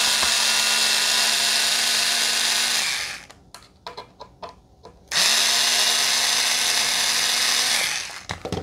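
SKIL cordless screwdriver running steadily as it backs out small Phillips screws. It stops about three seconds in, a few light clicks follow, then it runs again for about three seconds and stops near the end.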